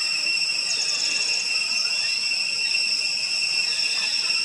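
Steady high-pitched insect drone, with a brief rapid trill about a second in.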